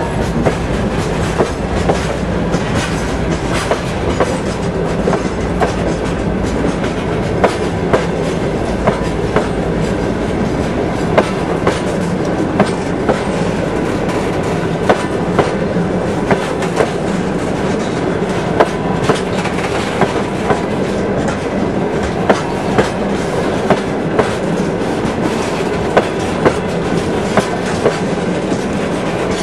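Freight train of open gondola wagons rolling past close by: a steady rumble of steel wheels on rail, with the clickety-clack of the wheels crossing rail joints, a sharp click roughly once a second.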